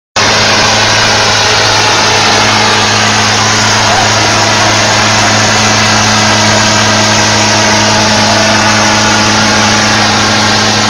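Farm tractors' diesel engines running hard and steady, two tractors chained back to back and straining against each other, over crowd noise.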